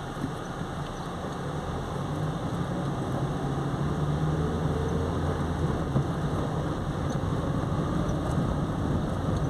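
Car engine and tyre noise heard from inside the cabin as it drives along an asphalt road. It grows a little louder from about two seconds in as the car picks up speed.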